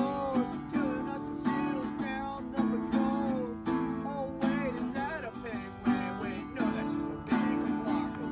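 Acoustic guitar strummed in a steady rhythm while a man sings along, his voice holding and bending notes over the chords.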